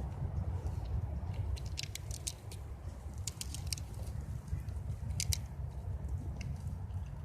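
Squirrel gnawing a nut in its shell: clusters of sharp, dry clicks and cracks of teeth on shell, over a steady low rumble.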